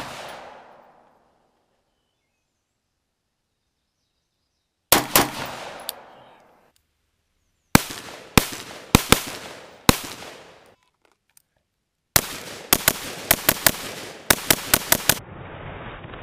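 Gunshots from an AR-15-style Daniel Defense rifle with a muzzle brake, each a sharp crack with a short echoing tail. Single shots come spaced about half a second to a second apart, then a fast string of about a dozen shots in about three seconds, with dead silence between the bursts.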